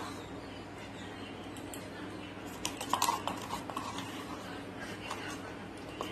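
Low steady background hum with a short cluster of light clicks and knocks about three seconds in, like kitchen utensils being handled.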